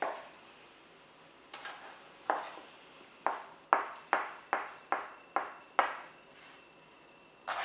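A metal spoon clinking and scraping against a metal Spam tin while cutting the Spam inside it: about ten sharp clinks with a brief ringing tone, coming about three a second in a quick run through the middle.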